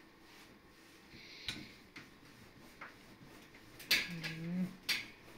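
Wooden rolling pin working a sheet of dough on a board: quiet rolling with a few sharp wooden knocks and clicks. A brief wordless voice sounds about four seconds in.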